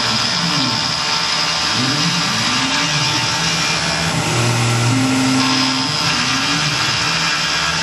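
Tormach PCNC 1100 CNC mill machining aluminium stock: a steady high-pitched cutting noise, with low tones that repeatedly rise and fall in pitch as the machine moves.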